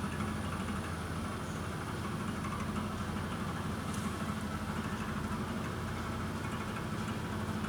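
Steady low electrical hum from a running appliance or motor, even and unchanging throughout.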